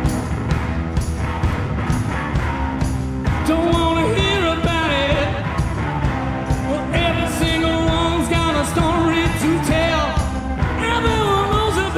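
Live rock band playing, with drums and electric guitar. A male lead vocal comes in about three seconds in and is sung in phrases, with short gaps between lines.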